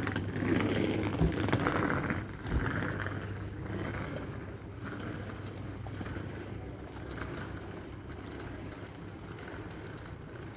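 Passenger train coaches rolling slowly past on the track: a steady rumble of wheels on rails with two low knocks in the first few seconds, growing quieter after about two and a half seconds.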